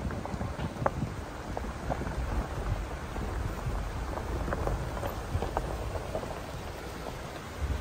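Jeep rolling slowly along a gravel road: a steady low rumble of tyres and engine, with gravel crunching and scattered small pops of stones under the tyres.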